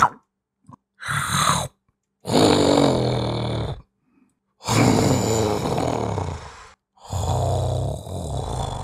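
A voice actor performing cat-monster growls and roars: a short growl about a second in, then three long, drawn-out growling roars, each cut off abruptly by silence.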